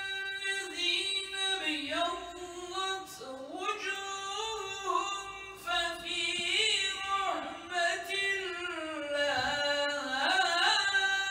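A man's solo voice chanting Quranic recitation in long melismatic phrases, holding notes and sliding and ornamenting between them, with no accompaniment.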